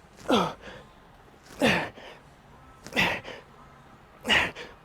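A man breathing out hard, once with each pull of a heavy single-arm dumbbell row: four forceful, voiced exhalations falling in pitch, about one every second and a half.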